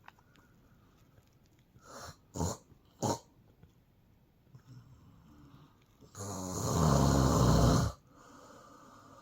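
A woman snoring in her sleep: a few short snorts about two seconds in, soft breathing, then one long, loud snore near the end.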